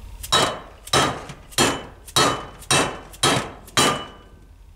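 Seven evenly spaced mallet blows, about two a second, from an orange plastic-faced mallet tapping a new bearing into a Puch ZA50 engine case half. Each blow is a sharp knock with a short ring from the case.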